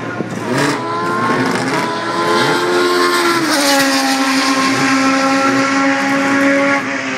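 Historic racing car passing at speed, its engine note climbing as it approaches, then dropping sharply in pitch as it goes by about three and a half seconds in and holding steady as it pulls away.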